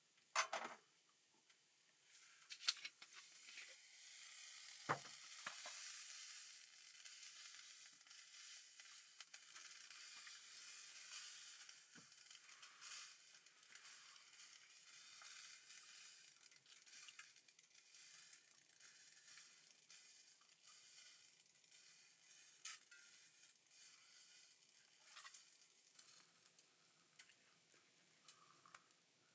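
Faint sizzling of food frying in a pan on a portable stove, a high hiss that builds about two seconds in and slowly thins toward the end. A few sharp clicks or pops, the loudest right at the start.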